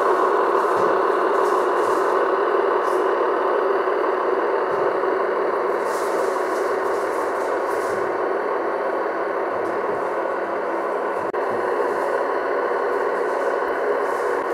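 Gauge 1 model train rolling along the track: a steady, even running noise from the wheels and drive, with a few faint clicks.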